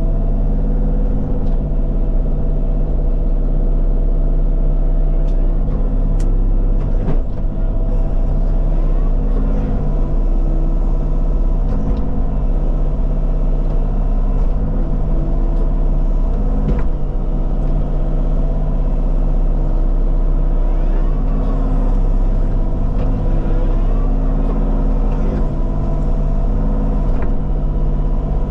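Diesel engine of a compact earthmoving machine (skid steer or mini excavator) running steadily under working load. One of its tones drops out and returns every second or so as the load changes, with a few short knocks now and then.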